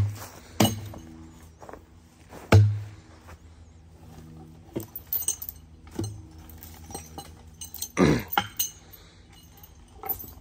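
Steel skidding tongs and their chain and stretcher bar clanking and clinking as they are hooked onto a log, a string of sharp metal knocks with the loudest about two and a half seconds in and a quick cluster near the end.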